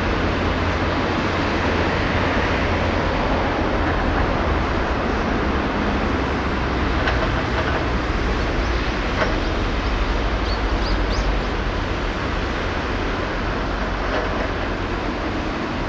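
Steady outdoor background rumble with hiss, loud and unbroken, with a few faint high squeaks between about seven and eleven seconds in.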